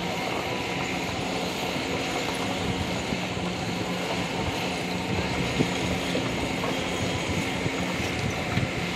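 Kobelco SK200 crawler excavator travelling, its diesel engine running with a steady low hum under the clatter of its steel tracks.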